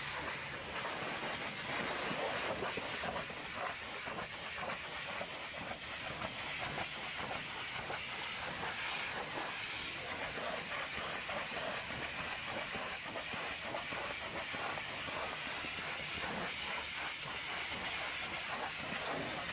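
Hot-water pressure washer spraying through a long lance onto the metal side boxes of a flatbed truck: a steady hiss of the jet with a rapid, crackling spatter of water striking the panels.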